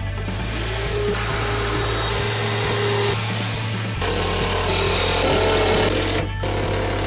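Electric drill boring into the wooden shelf: two runs of the motor, each a steady whine of about two and a half seconds, the second slightly higher in pitch.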